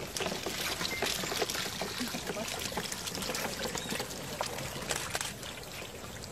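Water and dozens of turtle hatchlings pouring out of a tipped metal basin onto wet sand: a splashing trickle with many small clicks and taps, loudest in the first couple of seconds.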